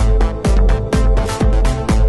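Electronic dance music with a steady four-on-the-floor kick drum, about two beats a second, over a heavy bass and sustained synth chords.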